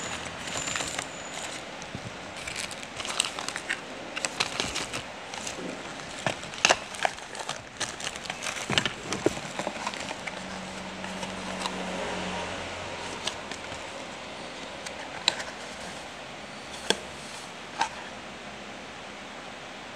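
Smartphone packaging being handled: a paper leaflet, plastic bag and cardboard box rustling and crinkling, with many small clicks and taps through the first half, then a few single sharp clicks near the end.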